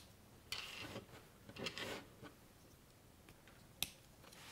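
Plastic pieces of a Technic-style building-brick set being handled: two short spells of rustling and scraping in the first two seconds, then a single sharp click near the end.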